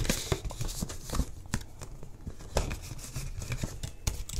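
Paper banknotes and a binder's clear plastic envelope pocket rustling as bills are handled and tucked in, with scattered small clicks and taps. The rustle is loudest right at the start.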